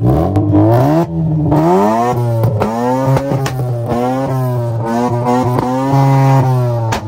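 A parked car's engine being revved hard and repeatedly, the pitch climbing and dropping in quick throttle blips about once a second, with sharp exhaust pops and cracks between the revs.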